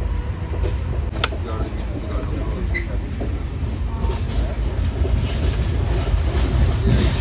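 Shatabdi Express passenger coach running at speed, heard from inside the carriage: a steady low rumble with a sharp click about a second in.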